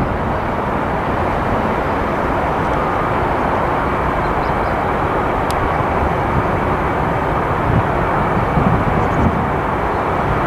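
Steady, loud noise of a jet airliner's engines.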